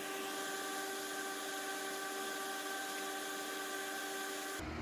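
Vapor polisher running on a frosted plastic element: a steady hiss with a steady whine.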